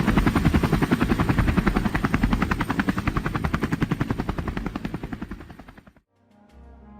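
Helicopter rotor chopping in rapid, even beats, fading away over the last few seconds and cutting off; quiet music comes in just before the end.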